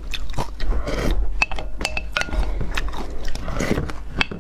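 Close-miked eating: wet chewing and slurping of a thick, creamy purple food, with a few short, ringing clinks of a wooden spoon against a glass bowl.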